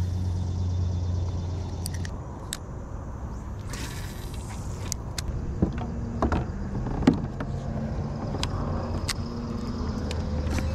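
Scattered sharp clicks and knocks of a rod and reel being handled in a plastic fishing kayak, over a low steady hum for the first two seconds and a short rush of noise about four seconds in.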